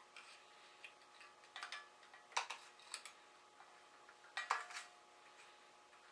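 Small metal parts clinking and tapping together as they are handled, in a few short clusters, the loudest with a brief ring.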